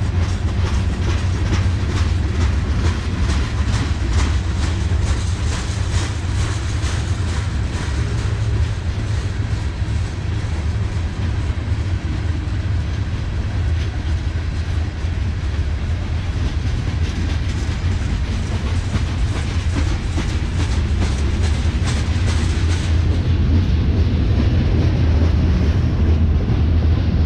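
Freight cars of a mixed freight train rolling past at close range: a steady, heavy low rumble with rapid, continuous clicking of steel wheels on the rails.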